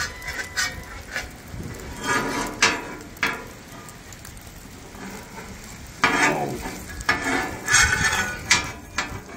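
Metal spatulas scraping and clinking on a hot flat-top griddle while food sizzles: a few scraping strokes about two seconds in, then more from about six seconds on, with a steady sizzle between.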